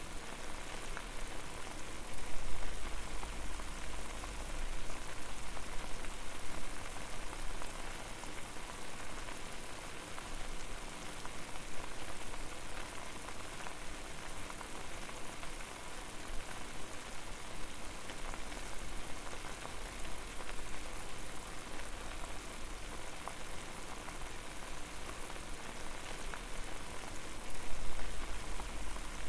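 Water at a full boil over a fire, a steady dense bubbling and crackling. A low rumble swells about two seconds in and again near the end.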